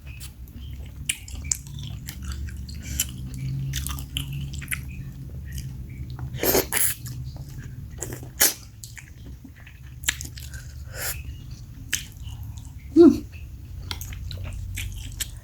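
Close-up chewing and mouth sounds of someone eating bakso meatball soup, with scattered short clicks and a louder burst about 13 seconds in, over a steady low hum.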